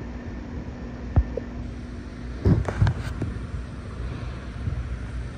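Wind buffeting the microphone over a low steady rumble, with a faint hum for the first couple of seconds, a single click about a second in and a short cluster of knocks about two and a half seconds in.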